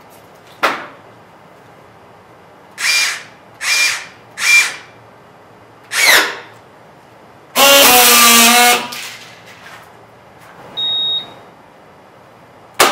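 Signode BXT2 battery-powered strapping tool working through a tension-and-weld cycle on plastic strap. First a sharp click, then three short whirs and a fourth of the tensioning motor, then a loud buzzing friction weld lasting about a second. A short high steady beep follows, the tool's signal that the welding cycle is finished, and a sharp click comes near the end.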